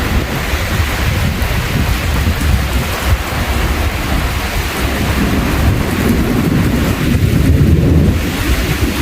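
Heavy rain falling with rolling thunder; the low rumble swells in the second half.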